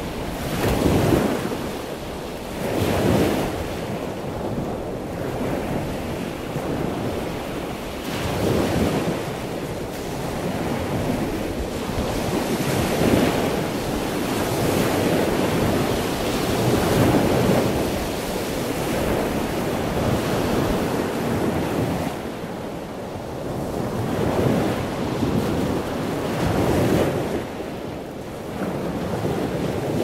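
Ocean surf: waves breaking and washing in, swelling and ebbing every few seconds, with wind rumbling on the microphone.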